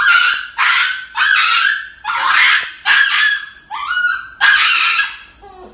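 A small dog crying out in a run of about seven loud, shrill yelps, each about half a second long, while held for an injection at the vet.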